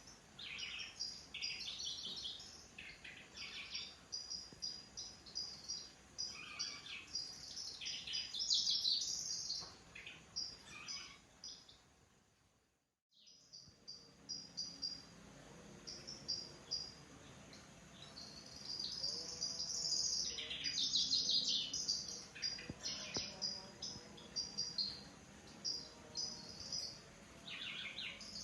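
Kecici belalang (cici lurik) songbird singing: repeated runs of rapid, high, buzzy chirping notes, broken by a brief silent gap about halfway through.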